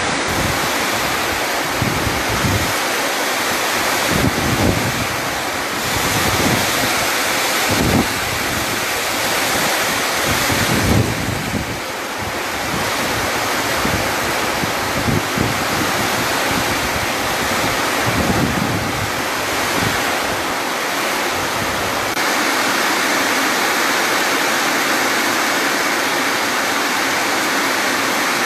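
Torrential rain falling in a steady hiss, with gusts of wind buffeting the microphone now and then. About three-quarters of the way in it turns to an even rain hiss without the wind gusts.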